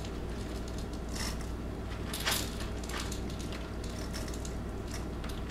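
Mini chocolate chips being added to a mug of cookie dough: a few faint, scattered light clicks and rustles over a steady low hum.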